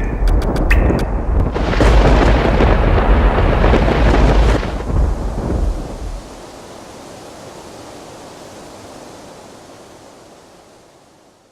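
A long, deep thunder rumble that builds over the first few seconds and dies away about six seconds in, followed by a softer steady hiss that fades out.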